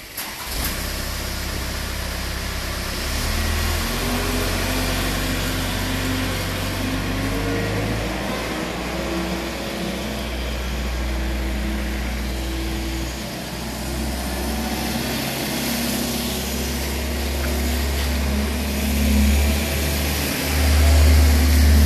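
A motor vehicle engine running close by: a steady low hum with a few pitched tones that shift now and then, over a constant hiss. Near the end the low hum grows louder as a vehicle draws near.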